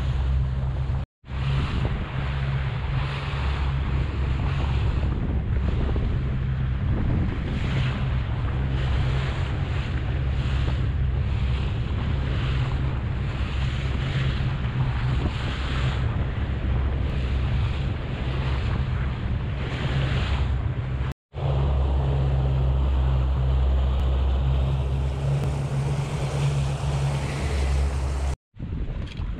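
A boat running at speed on a Yamaha 70 hp outboard: a steady low engine hum, water splashing and slapping against the hull about once a second, and wind on the microphone. The sound drops out briefly about a second in and twice more near the end.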